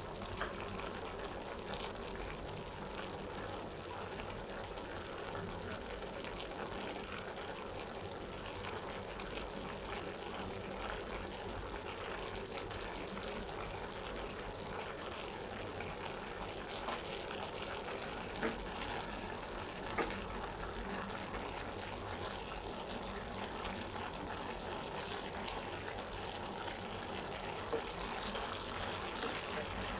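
Cabbage, carrots and chicken cooking in a pot: a steady sizzling, bubbling hiss. A few light clicks cut through it, the last near the end as a wooden spatula goes into the pot to stir.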